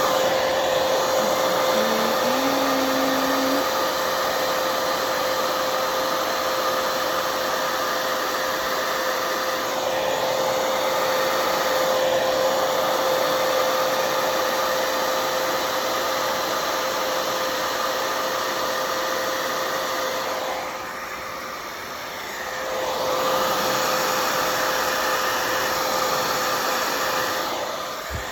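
Hair dryer running steadily, blowing fluid paint: a constant rushing hum with a steady whine in it. About three quarters of the way through it drops off for a moment, then comes back up.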